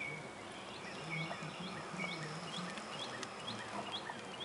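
Faint background birdsong: repeated short high chirps about twice a second, with a thin, steady high note through the middle.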